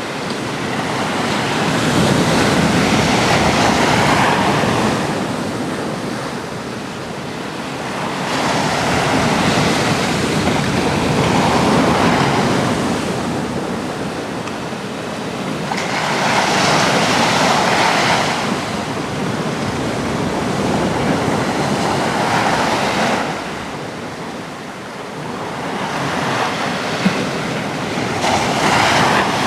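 Atlantic sea waves breaking on a rocky coast: a steady wash of surf that swells and eases every several seconds as each wave comes in, with some wind on the microphone.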